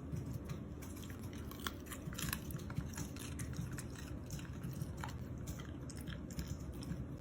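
A dachshund chewing: a run of short, irregular clicks over a low hum.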